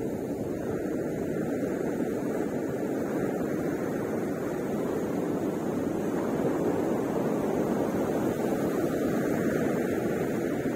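Ocean surf breaking on the beach, a steady wash of wave noise.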